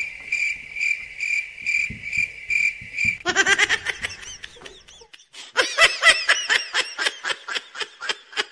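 Cricket chirping, evenly about three chirps a second, which stops about three seconds in. Then comes high-pitched giggling in quick repeated bursts, twice with a short pause between.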